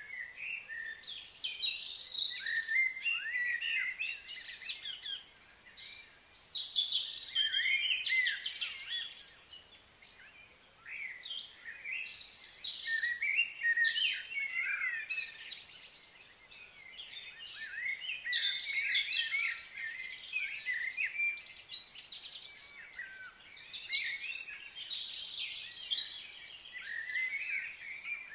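Wild birds singing and chirping in spells of quick, warbled high-pitched phrases, with short lulls every few seconds.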